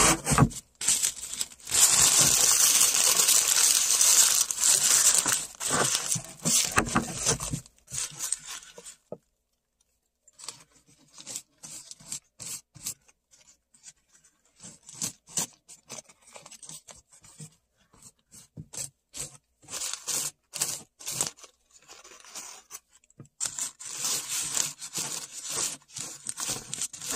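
Paper being torn and crumpled by hand: a long stretch of tearing and rustling in the first seven seconds or so, then a brief lull, then scattered light rustles, and more rustling near the end.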